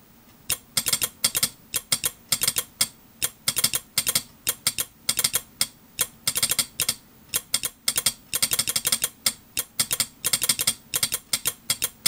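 Vintage straight Morse key being tapped to send code: its lever and contacts click sharply, in quick clusters separated by short pauses.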